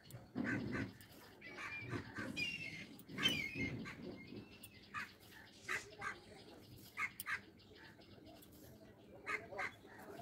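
Birds calling now and then in the background, a few short wavering calls, the clearest about two and a half and three seconds in. Between them come soft, short rustles and scrapes of wool yarn being drawn through burlap cloth with a needle.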